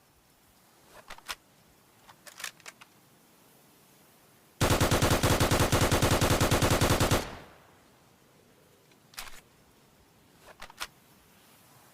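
Type 100/44 submachine gun (8mm Nambu) firing one long full-auto burst of rapid, even shots lasting about two and a half seconds, about halfway through. A few faint clicks come before and after it.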